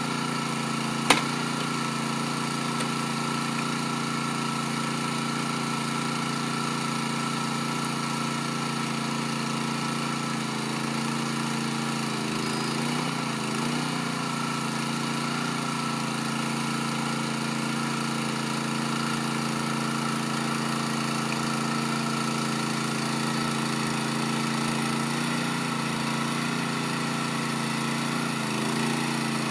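Small combustion engine of an aluminium overhead-line trolley's hydraulic drive, running steadily at idle. A single sharp click comes about a second in, and the engine's pitch wavers briefly near the middle and again near the end.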